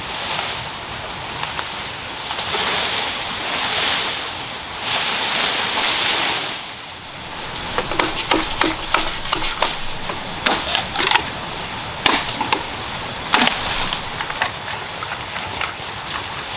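Leaves and undergrowth rustling in swells as someone pushes through dense vegetation. Then, from about halfway, a quick run of hollow clattering and several sharp knocks of green bamboo stalks against each other.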